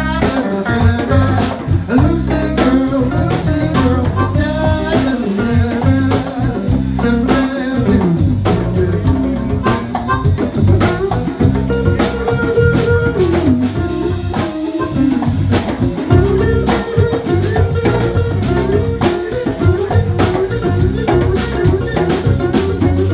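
Live blues band playing: electric guitar, harmonica and djembe over a drum kit, with steady, evenly repeating drum hits.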